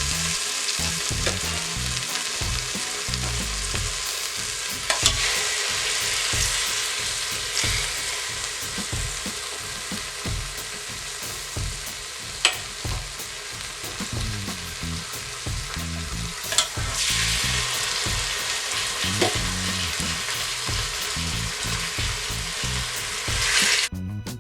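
Pieces of seasoned red snapper sizzling as they fry in olive oil in an Instant Pot's inner pot on the sauté setting, a steady hiss with a few sharp clicks. The sizzle flares up louder twice, about five and seventeen seconds in.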